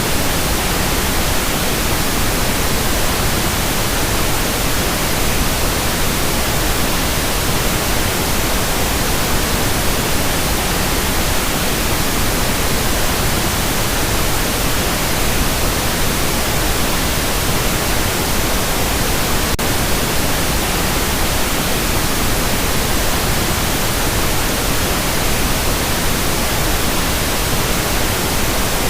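Steady synthetic noise for tinnitus masking, an even hiss spread across low and high pitches at a constant level.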